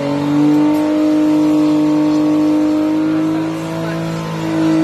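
Nissan Fuga 250GT's 2.5-litre V6 held at high, steady revs for a burnout, the note easing briefly near the end.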